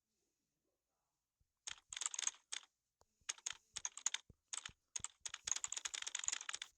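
Typing on a computer keyboard: after about a second and a half of silence, keystrokes come in short bursts, then run together into fast continuous typing for the last second or so.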